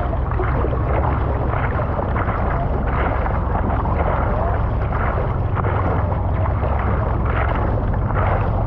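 Steady rush of water with wind buffeting the microphone, a heavy low rumble underneath.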